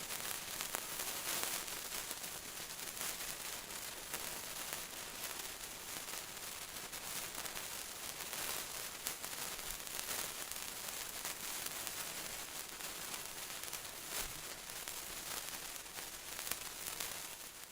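Hand-held sparklers burning: a steady fizzing hiss full of fine crackles, with a few sharper pops, fading out at the very end.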